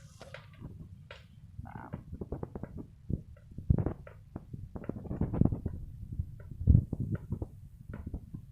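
Handling noise close to the microphone: irregular rustling and clicks, with two louder knocks a few seconds apart.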